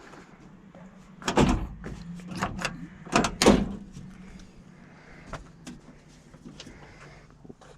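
Vehicle doors shutting: sharp thumps about a second and a half in and a louder pair a little after three seconds, followed by a few lighter knocks.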